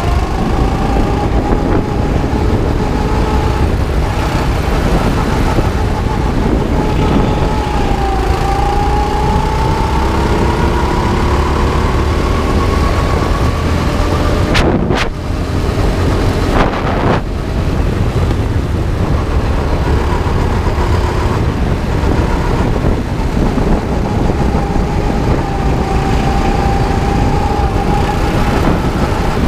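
Onboard sound of a 9 hp go-kart engine running hard. Its pitch climbs steadily for several seconds along the straight, then it dips briefly twice a little past halfway.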